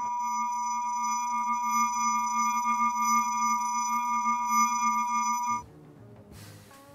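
An electronic sound-effect tone: a steady low hum under a high multi-pitched ringing whine. It cuts in abruptly and stops suddenly about five and a half seconds in, leaving faint background music.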